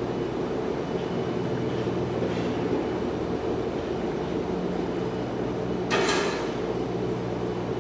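Steady mechanical hum holding a few fixed tones, with a short sharp hiss about six seconds in.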